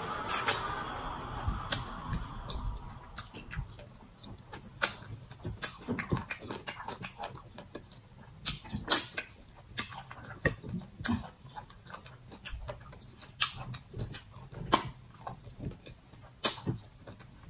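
Close-miked eating sounds from chewing starch fufu and soup by hand: wet lip smacks and mouth clicks at an irregular pace. A sucking, slurping sound from the fingers in the mouth fades out over the first two seconds.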